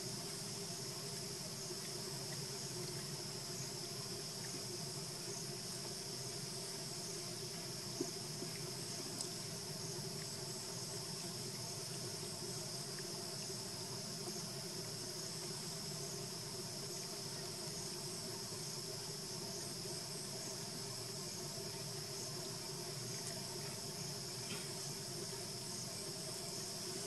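Steady insect chorus, a continuous high-pitched buzzing drone that does not change, with one short click about eight seconds in.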